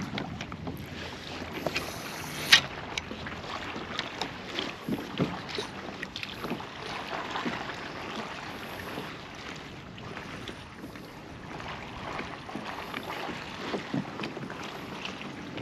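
Water lapping and slapping against a kayak's hull, with wind on the microphone and scattered small knocks and clicks, the sharpest about two and a half seconds in.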